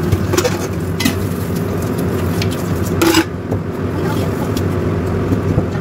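A metal lid clanks down onto a large stainless-steel stockpot about three seconds in, ringing briefly, after a couple of light metal knocks. A steady low mechanical hum runs underneath.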